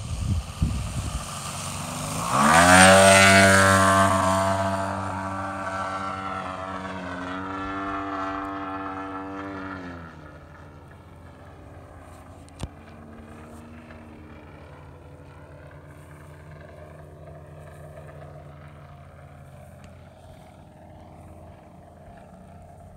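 RC model jet with a JetCat P80 turbine and a GP 88 gas engine making a fast, low pass: the engine drone and turbine hiss rise loud about two seconds in and drop in pitch as the plane goes by. It then fades to a steady distant drone as the plane climbs away.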